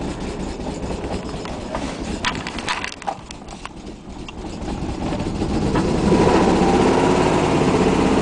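Nissan 300ZX (Z32) V6 engine running, with a few sharp clicks, dropping quieter around three seconds in, then swelling to a louder, rhythmic, uneven running from about six seconds. The owner puts its trouble down to bad fuel injectors.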